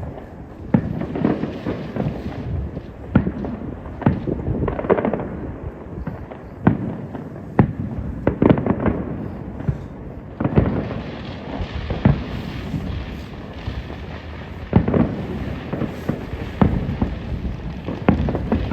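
Aerial fireworks bursting in a continuous barrage: booms come every second or so with rumbling echoes between them, and the barrage turns denser, with a hissing crackle, from about ten seconds in.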